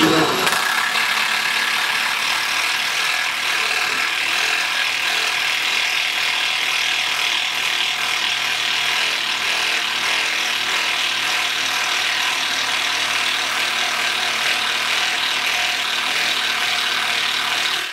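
Cordless drill turning a Barracuda ship auger bit as it bores into a softwood beam and through the nails driven into it: a steady drilling noise that stops suddenly at the end.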